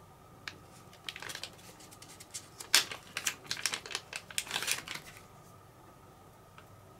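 Clear plastic zip bag crinkling and rustling in the hands as it is opened and the steel handle grip is taken out. The crackle comes in quick irregular bursts, loudest about three seconds in, and stops about five seconds in.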